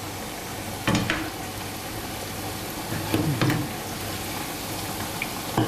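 Boiled cassava (mogo) pieces deep-frying in hot oil in a pan, a steady sizzle, stirred with a slotted spoon. Short louder sizzling bursts come about a second in, around three seconds in and near the end.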